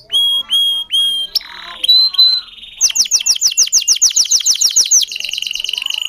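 Domestic canary singing a cengkok-style song, a song the bird has varied itself rather than copied from its tutor. It opens with a few long whistled notes and a short harsh note, runs into a fast trill of falling notes, and switches to a rapid buzzing trill about five seconds in.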